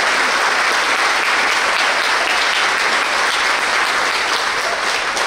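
Audience applauding: dense, even clapping that begins to thin out near the end.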